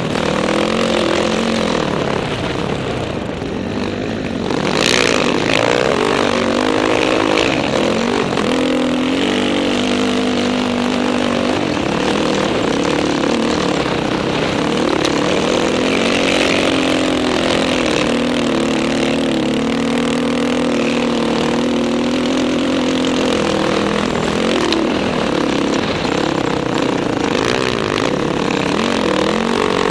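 Dirt bike engine running hard across sand, its pitch rising and falling with the throttle. It eases off briefly about three seconds in, then picks up again.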